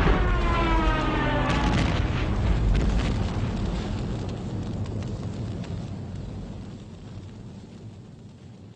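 Hand-cranked mechanical air raid siren winding down, its wail falling in pitch and fading over the first two seconds. Under it, a deep explosion-like rumble with crackling dies away slowly.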